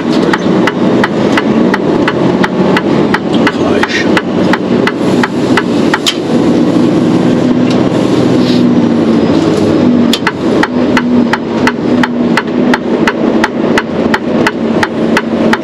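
Turn-signal ticking inside a Mercedes-Benz Actros truck cab, even clicks at about three a second over the steady engine and road noise. The ticking drops out for a few seconds around the middle, then comes back.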